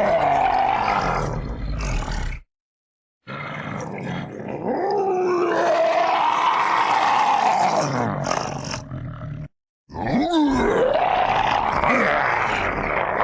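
Edited raccoon vocalisations: long, pitched calls that glide up and down, in three stretches separated by sudden cuts to silence.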